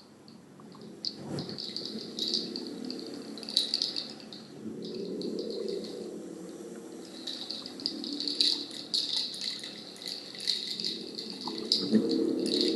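A hand rattle shaken in waves of rustling as part of a sound-healing session, growing louder toward the end, with a low steady sound underneath.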